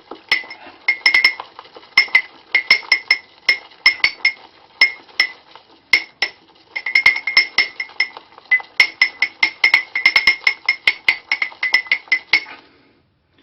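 Shaving brush whipped around inside a mug to build lather, knocking against the mug's sides in fast, irregular clinks with a ringing tone. The clinking stops near the end.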